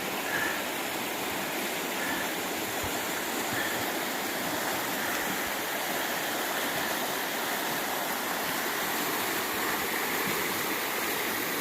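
Steady rush of the Kettle River's running water.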